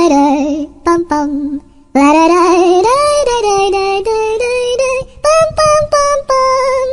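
A sung ringtone: a high, childlike singing voice with vibrato. It breaks off under a second in and starts again about two seconds in.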